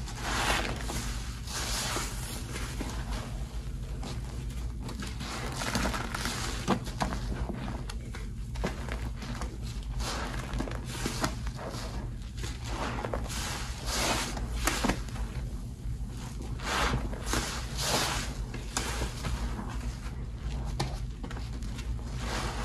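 Soap-soaked sponges being squeezed and wrung by hand in a basin of thick suds: irregular wet squelches and foamy crackling, over a steady low hum.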